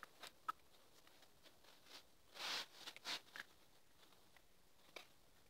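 Near silence: quiet room tone with a sharp faint click about half a second in, a few brief soft rustles around the middle, and another faint click near the end.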